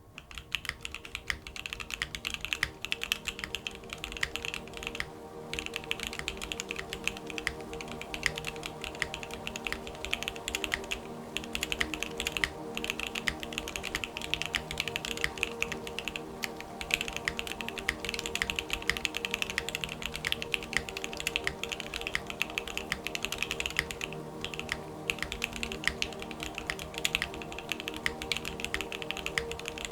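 Continuous fast typing on a Geonworks F1 mechanical keyboard with JWK Alpaca linear switches: a dense, clacky stream of keystrokes that pauses briefly twice, over background music with long held notes.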